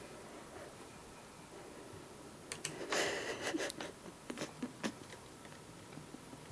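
Faint handling of small laptop screws and a tiny screwdriver: quiet at first, then a run of small clicks with a short scrape about three seconds in.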